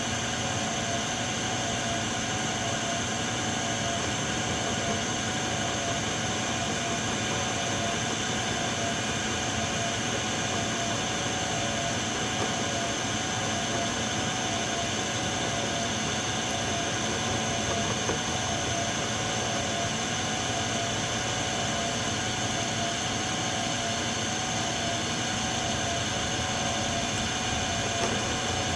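Metal lathe running steadily, its cutting tool turning down steel stock for a fitting.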